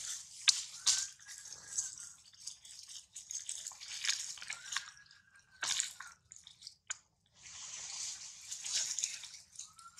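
Newborn baby monkey sucking hard at its mother's nipple: irregular wet smacking and clicking sucks mixed with breathy puffs. Three times a faint, short high squeak rises and falls.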